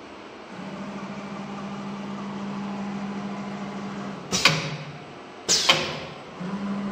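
Surf CNC ATC router's drive motors humming steadily as the spindle head travels on the gantry, broken by two short, sharp bursts about a second apart as the automatic tool changer works at the tool rack. The hum picks up again near the end.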